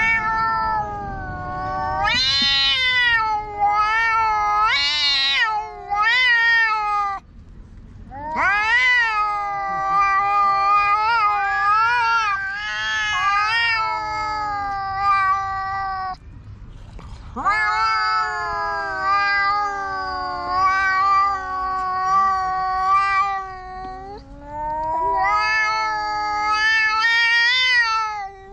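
Two black cats yowling at each other in a standoff, a loud verbal quarrel without fighting: long, drawn-out caterwauls whose pitch wavers up and down, in four long stretches broken by short pauses.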